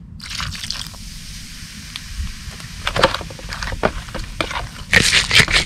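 Liquid poured over raw chicken hearts in a metal pan, then a hand squishing and mixing the wet hearts with short squelching clicks. Near the end, a fast run of loud rhythmic scraping strokes, about four or five a second.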